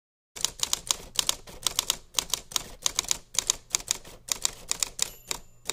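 Manual typewriter keys striking in a rapid irregular run, about six clacks a second, typing out a title. Near the end a small bell rings once, like a typewriter's end-of-line bell.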